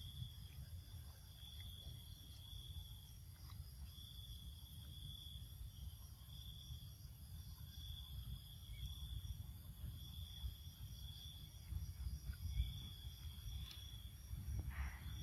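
An insect trilling at one steady high pitch, in pulses of about a second that come every second or two, over a low rumble.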